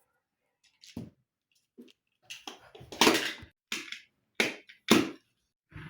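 About half a dozen short taps and knocks with silence between them.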